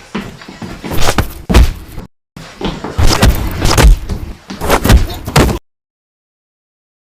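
Fight sound effects: a rapid run of punch and hit impacts, thuds one after another. They come in two runs with a short break about two seconds in, then cut off to silence about five and a half seconds in.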